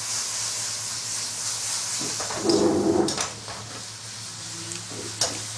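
Chili bean paste and Sichuan peppercorns sizzling in hot oil in a wok, with a louder burst of sizzle for under a second about two and a half seconds in and a couple of clicks near the end.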